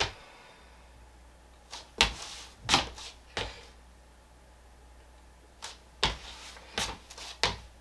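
A series of short knocks and bumps, about eight of them, irregularly spaced, the loudest two about two seconds in.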